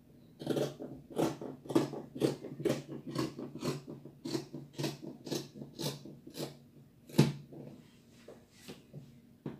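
Fabric scissors cutting through Ankara cotton print fabric in a steady run of snips, about two a second. One louder snip comes about seven seconds in, then a few scattered cuts near the end.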